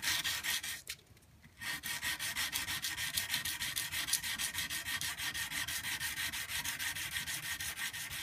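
Oiled 150-grit sandpaper rubbed by hand along a steel knife blade's clip, in rapid, even back-and-forth strokes, with a brief pause about a second in.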